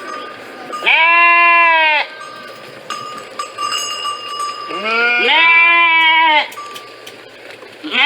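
Sheep bleating: a bleat of about a second, then two overlapping bleats lasting about a second and a half, each call a wavering pitched baa.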